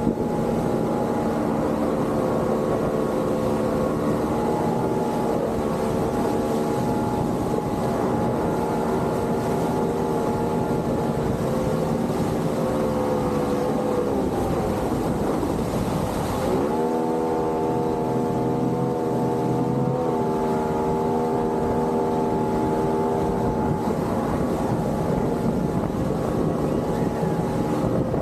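Boat motor running steadily on the water. Its pitch drops about halfway through, breaks off briefly, then comes back up and runs on, with some wind on the microphone.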